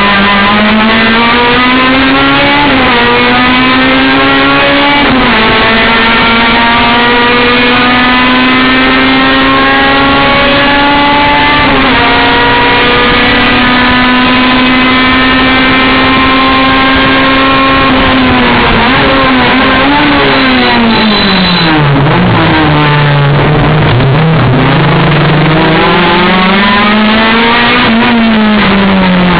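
Honda four-cylinder race car engine at high revs: it revs up and shifts up twice in the first five seconds, then holds a long steady pull at nearly constant revs. From about 18 seconds in it brakes down through the gears with quick throttle blips between downshifts, then accelerates hard again and shifts up near the end.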